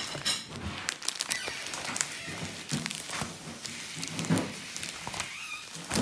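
Clear plastic punched pockets in a ring binder crinkling and rustling as pages are flipped over, with many small irregular clicks and knocks.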